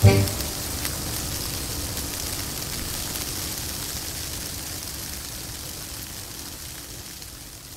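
The accordion's last chord cuts off at the very start, leaving a steady even hiss like falling rain that slowly fades out.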